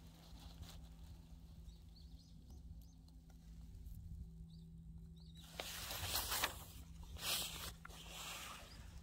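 Rustling in dry grass: a few loud, scratchy bursts starting about halfway through, over a steady low hum, with a few faint high chirps in the first half.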